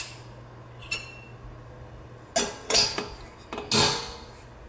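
Metal clinks and clanks from a stainless steel kettle and its lid being handled: several sharp knocks, each ringing briefly, the loudest about four seconds in.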